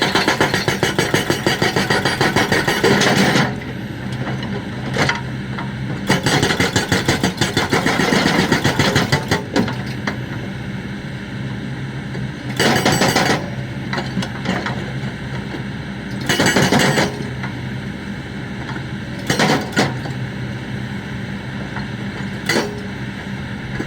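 Hydraulic breaker on a Kobelco excavator hammering in runs of rapid blows, several a second: two runs of about three seconds, then several short bursts. The excavator's diesel engine runs steadily between the bursts.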